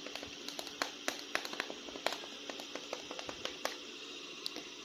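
Light, irregular clicks and taps of a plastic action figure being handled, a few a second, over a faint steady hum.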